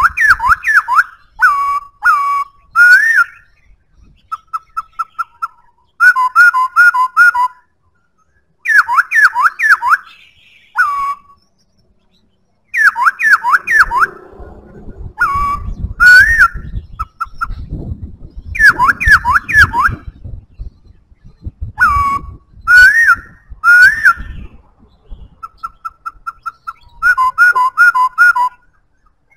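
Black-throated laughingthrush singing: loud, clear whistled phrases of quick falling notes, given in bursts with short pauses, some passages a string of short notes on one pitch. A low rumble runs under the song through the middle stretch.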